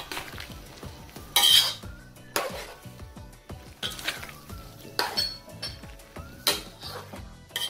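Metal spatula scraping and clanking against a large metal wok while vegetables in a thin broth are stirred. The strokes are irregular, about once a second, and the loudest scrape comes about one and a half seconds in.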